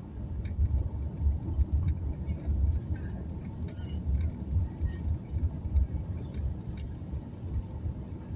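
A car driving, heard from inside: an uneven low rumble of road and engine noise, with scattered small clicks and rattles.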